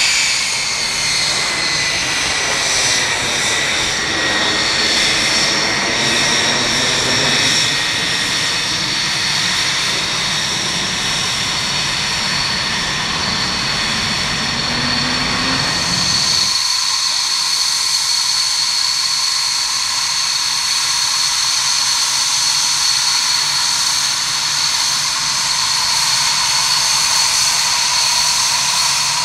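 Dassault Mirage F1's single SNECMA Atar turbojet running as the fighter taxis past, a whine falling slightly in pitch over a deep rumble. A little past halfway the sound cuts to a Mirage 2000's jet engine at taxi power: a steadier, higher whine with little rumble.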